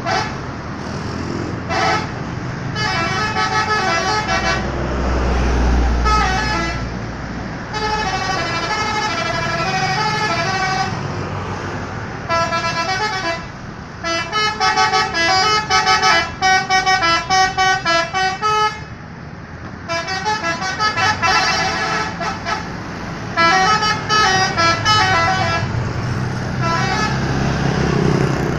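Indonesian 'telolet' multi-tone bus horns playing melodic tooting tunes in repeated bursts, some played as quick staccato toots. A low engine rumble runs underneath.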